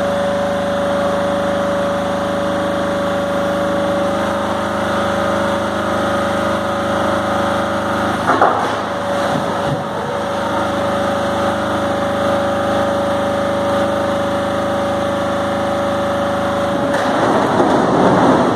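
Donkey engine driving the hydraulic tipping gear runs steadily with a held whine as the container is raised. There is a brief noisy rush about eight seconds in. Near the end the whine stops and a louder rushing rumble takes over as the load slides out of the tipped container.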